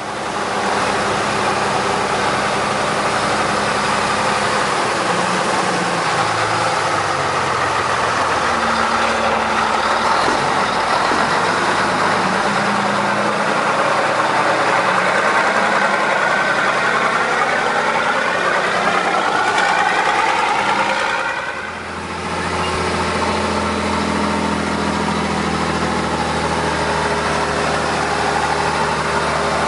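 1952 Mack LM truck's engine running, its pitch rising and falling as it is revved and driven. A brief dip about two-thirds of the way through, after which it settles into a steadier, lower note.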